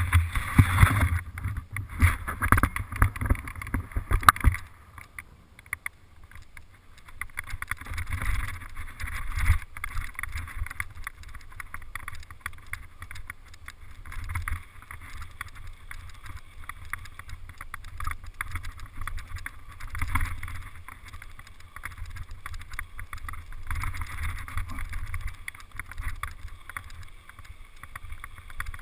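Mountain bike riding down a rough dirt trail heard through an action camera: wind rushing over the microphone with rattles and knocks from the bike over the bumps, heaviest in the first four seconds or so, then a steadier rush.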